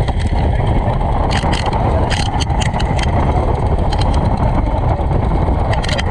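Palay being winnowed in front of a Hanabishi electric fan: the fan's steady wind rumbles loudly on the microphone while falling rice grains patter and tick.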